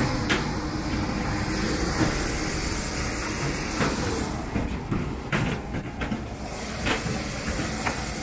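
Steady hiss and rumble of airport apron noise from aircraft and ground equipment, with a few brief clicks or knocks.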